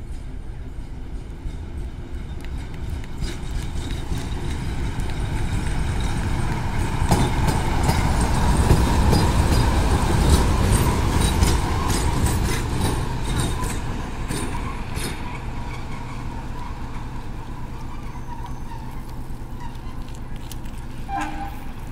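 060-DA1 diesel-electric locomotive with a Sulzer diesel engine running as it passes: the sound grows louder as it draws near and fades as it moves away. While it is closest, wheels click repeatedly over the rail joints.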